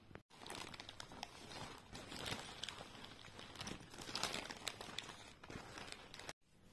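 Rustling and crinkling of a black nylon fabric bag being handled, with irregular scratchy noise and small clicks. It starts and stops abruptly.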